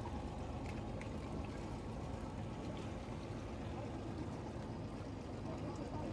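A boat's motor running steadily, with water washing along the hull.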